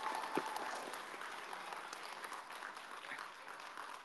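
Audience applauding, gradually dying away.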